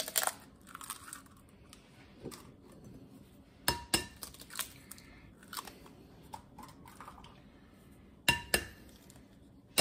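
Eggs cracked one at a time against a glass mixing bowl, twice about four and a half seconds apart. Each egg gives a pair of sharp taps with a brief glassy ring. Faint small clicks and crackles of shell come in between.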